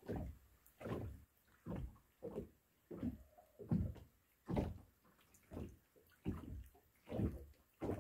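Small waves slapping against the hull of a moored fishing boat: soft, uneven knocks a little under a second apart.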